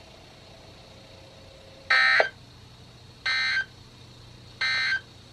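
Three short, harsh, buzzy bursts of SAME digital data, each under half a second and about a second apart, from a NOAA Weather Radio broadcast played through a weather radio's speaker.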